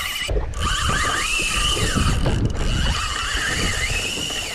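Penn Spinfisher 8500 spinning reel whining and ratcheting under the strain of a hooked yellowfin tuna, its pitch swelling up and down twice.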